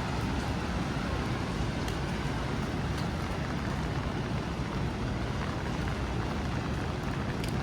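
Steady rain mixed with city street traffic, an even wash of noise with no break. There are a few faint ticks about 2, 3 and 7.5 seconds in.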